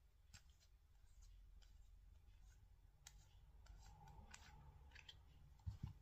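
Near silence with faint, scattered clicks of a small metal lockshield radiator valve being handled in the fingers, and a couple of soft low thumps near the end.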